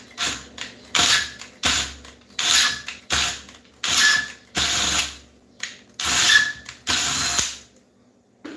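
Cordless drill spinning an American-thread bolt into a metric threaded hole in an engine valve cover, in about a dozen short bursts, stopping about seven and a half seconds in. The mismatched bolt is being forced in to strip the thread on purpose.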